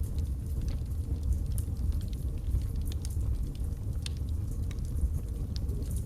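Wood logs burning in a fireplace: a steady low rumble of flame with scattered sharp crackles and pops, several each second.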